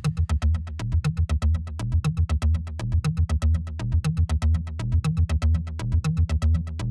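Background electronic music with a fast, steady synthesizer beat and a repeating bass line.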